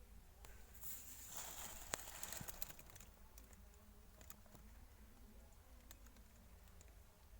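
Faint rustling with a few light clicks, strongest from about one to three seconds in, over a low background hiss.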